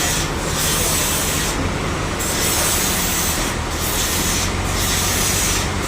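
Sawmill saw cutting through a large hardwood log: a steady machine hum under a loud hissing cut that dips briefly several times.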